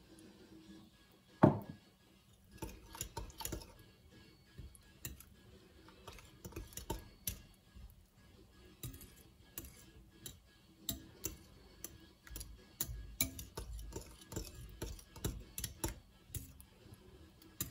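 A metal spoon stirring a thick yogurt-and-cucumber mixture in a glass bowl, clinking and scraping against the glass at irregular intervals. About a second in, a glass bowl is set down with one loud, briefly ringing knock.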